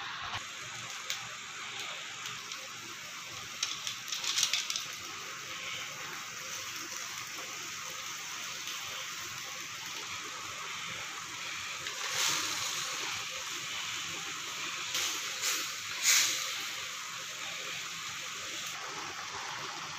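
Kangkong simmering in a metal pan of vinegar, soy sauce and water with a steady hiss, broken by a few short clusters of knocks from a wooden spoon against the pan, the loudest about sixteen seconds in.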